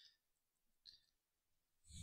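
Near silence, with two faint short clicks a little under a second apart.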